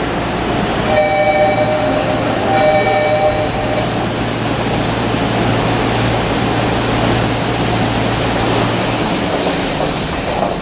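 Tokyu 3000 series subway train standing at the platform with its doors opening. A short electronic chime sounds twice in the first few seconds, over the steady low hum of the stopped train and the general noise of the station. The hum drops away near the end.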